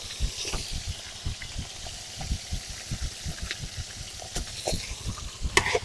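Whole tilapia frying in oil in a wide wok over a wood fire: the oil bubbles with soft, irregular popping, with a few sharper clicks near the end.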